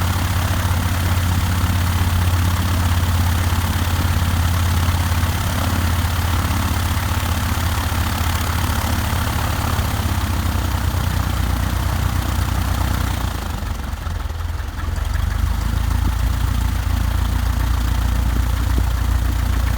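Piper Archer's four-cylinder Lycoming O-360 engine and propeller idling steadily after start-up. The engine note dips and shifts briefly about two-thirds of the way in, then settles back to a steady idle.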